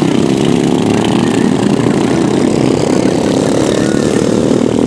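Racing ride-on lawn mowers' small petrol engines running steadily as the mowers circuit a grass track.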